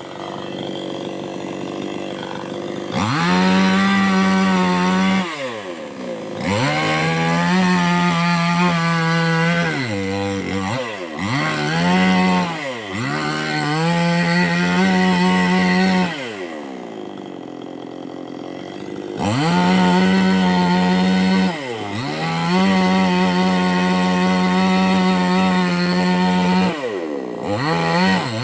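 Chainsaw cutting into a palmyra palm trunk. It revs up to full throttle and holds there for a few seconds at a time, then drops back toward idle, about eight times. The longest drop to idle comes a little past the middle.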